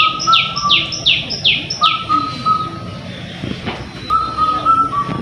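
Birdsong: a quick run of about six high chirps, each falling in pitch, in the first two seconds, with a repeated two-note whistle that returns near the middle and again near the end.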